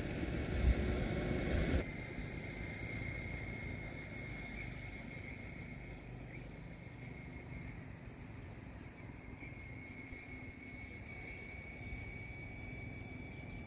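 Open-field outdoor ambience: a louder low rumble for about the first two seconds, then a quieter steady background with a thin, steady high tone and a few faint short chirps.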